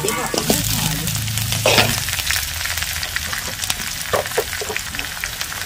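Onions, green chillies and whole spices sizzling in hot oil in a kadhai, with a steel ladle scraping and clinking against the pan as they are stirred; the scraping is loudest a little under two seconds in.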